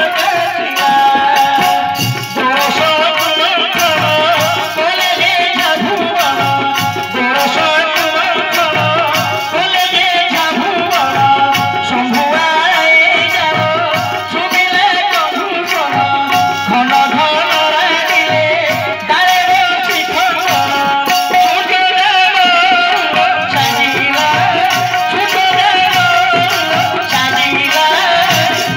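Live Bharat Lila folk-theatre music over a loudspeaker system: a melody that bends and wavers, sung or played on keyboard, over hand drums keeping a steady beat.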